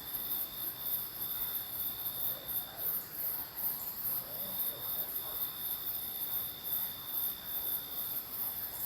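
Night chorus of crickets: a very high chirping pulsing about twice a second over a steady high trill.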